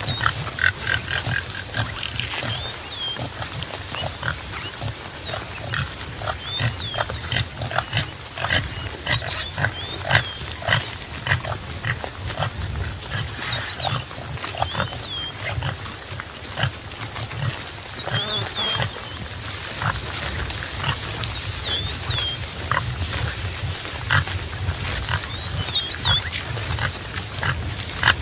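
Topi antelope making continuous low grunting, with scattered sharp clicks through it. A short high note repeats over it about every two seconds.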